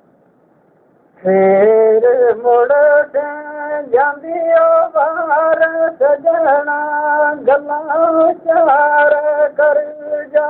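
A man's high voice singing a Gojri bait with no instruments, in long held, wavering notes broken by short breaths. The singing starts about a second in, after a near-silent pause.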